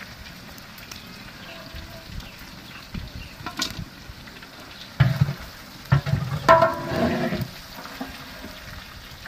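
Meat frying in oil in a large aluminium pot, a steady sizzle, with a few louder knocks and clatters in the middle as fried pieces are scooped out with a metal slotted ladle.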